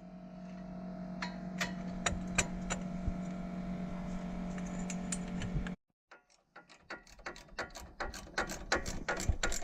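Socket ratchet clicking as bolts on the strut and brake line bracket are worked loose, with a steady hum under the first part. The sound cuts off suddenly partway through, then a quicker run of ratchet clicks follows.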